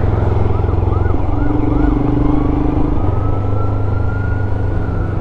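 Royal Enfield Himalayan's single-cylinder engine running steadily under way. Over it come a quick series of short chirping tones, about three a second, then one long, slowly rising high tone from about two seconds in.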